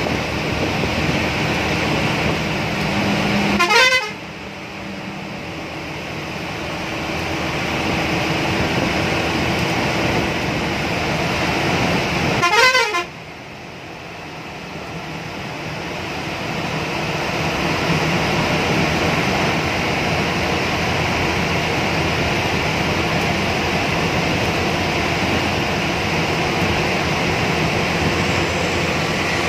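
Steady engine and road noise inside the driver's cab of a coach bus at highway speed. It is broken twice, about four and thirteen seconds in, by a short rising sweep that cuts off suddenly.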